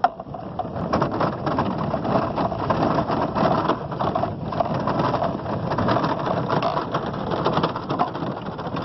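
Side-by-side utility vehicle running as it drives over a rough grass field, with a steady rattle of small clatters from the body over the bumps.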